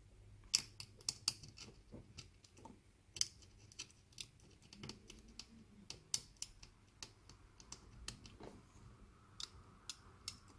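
Faint, irregular small clicks and scratches of a hand tool's tip picking and scraping at component pins and solder joints on a circuit board.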